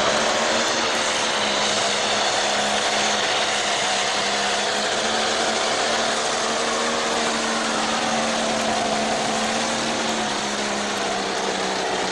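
Modified pulling tractor's engine running wide open under heavy load while dragging a weight-transfer sled, a loud, steady drone that holds its pitch with only a slight waver midway.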